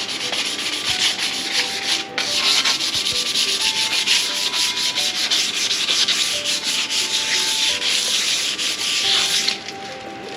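Sandpaper scrubbing across the face of a cast iron brake rotor, a steady rasping hiss that stops about nine and a half seconds in. The rotor is being resurfaced to remove the shine and old brake pad compound.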